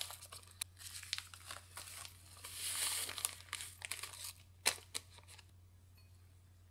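A paper biscuit packet crinkles as crushed digestive biscuit crumbs are shaken out of it into a glass bowl, in a run of crackly rustles and small clicks. One sharp click comes a little before five seconds in, and it falls quiet near the end.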